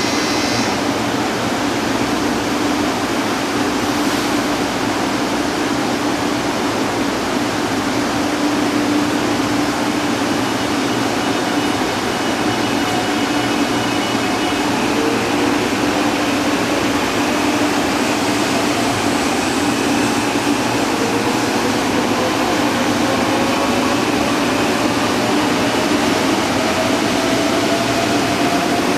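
A Shinkansen 300 series train running alongside as it accelerates: a loud, steady rush of running noise with a low hum. From about halfway through, a faint motor whine climbs slowly in pitch.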